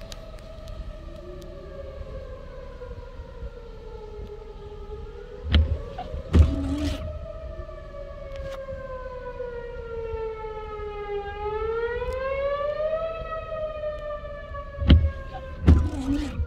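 Outdoor tornado warning siren wailing, its pitch slowly rising and falling. Twice, a pair of short, louder thumps from windshield wipers sweeping across the glass cuts in.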